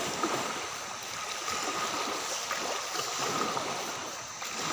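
Steady rushing wash of waves on a sandy beach, with a faint thin steady tone running through it.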